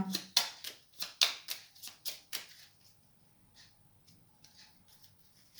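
A deck of fortune-telling playing cards being shuffled by hand: a quick run of crisp card slaps and flicks in the first couple of seconds, then softer, sparser ones.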